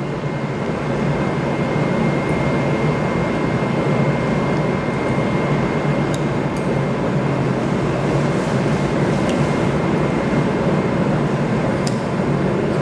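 A steady mechanical hum and hiss with a faint high steady tone, with a few faint clicks of metal dissecting instruments.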